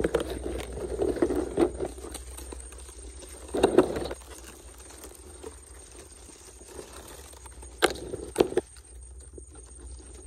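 Dry grass stems and twigs rustling and snapping in irregular bursts: one near the start, another about three and a half seconds in, and a pair of sharp snaps about eight seconds in, with quieter rustling between.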